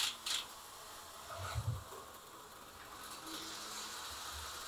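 Faint buzz of a small HO slot car's electric motor as the car is nudged along the track. There is a short scrape at the start and a low knock about a second and a half in. The car is not running properly, which the owner puts down to a bad pickup shoe.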